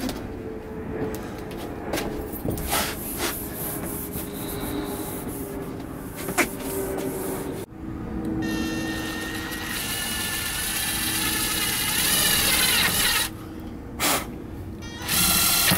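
Makita 18V cordless impact driver driving a screw into a van's sheet-metal wall panel: a long run whose whine slowly rises in pitch, starting about halfway in, then two short bursts near the end. Before it come scattered knocks and clicks of the tool being handled.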